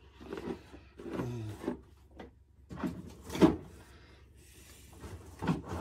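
Hard plastic carrying case being closed and handled: scattered clunks and rubbing, the loudest knock about three and a half seconds in and another near the end.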